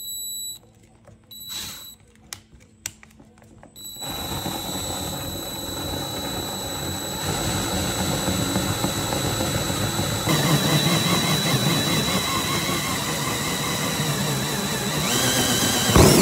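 Cordless drill turning a hole saw through a plastic car bumper cover. A few short clicks come first; about four seconds in the continuous cutting starts, and it grows louder about ten seconds in.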